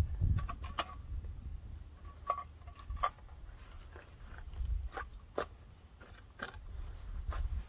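Low, gusting rumble of wind on the microphone, with about eight short, sharp clicks scattered irregularly through it.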